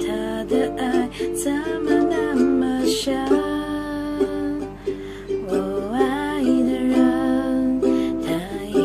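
Ukulele played in chords, with a woman's voice singing over them in long, sliding notes.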